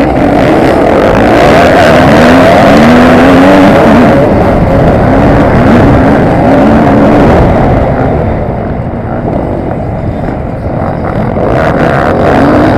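KTM EXC enduro motorcycle engine revving hard through the gears from a mass race start, its pitch repeatedly climbing and dropping with each shift, with other dirt bikes around it. The engine eases off about eight seconds in and picks up again near the end.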